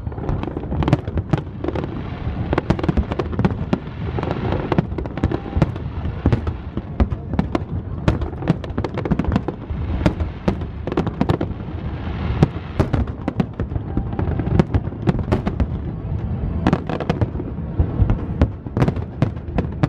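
Large fireworks display: aerial shells bursting in a continuous barrage, with many sharp bangs a second over a steady low rumble of further bursts.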